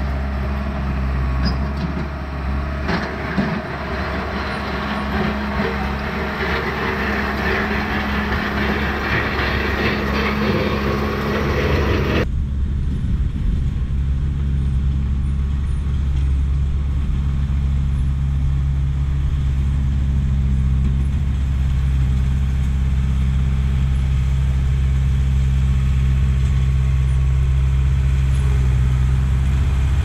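1988 Caterpillar D4C bulldozer's diesel engine running steadily under load. For the first twelve seconds or so a dense rattling and scraping of tracks and shale rides over it and then cuts off suddenly, leaving the engine drone, which grows slightly louder near the end as the dozer pushes loose shale.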